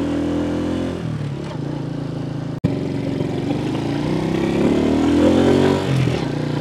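Small motorbike engine pulling two riders up a steep hill in low gear, running strongly. It cuts out for an instant near the middle, then its pitch rises steadily as it speeds up and drops again about six seconds in.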